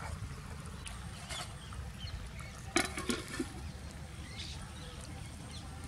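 A steel plate set down as a lid on a steel cooking pot, clanking once with a short ring about three seconds in, after a couple of light taps. A steady low rumble underneath.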